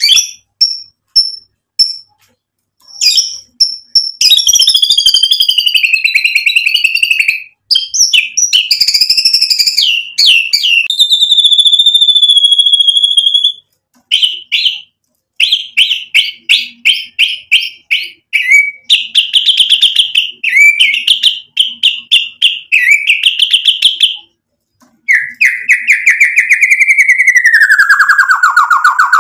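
White-rumped shama (murai batu) singing a long, varied song: rapid chattering runs, clear whistled phrases, and near the end a long whistle that slides steadily downward.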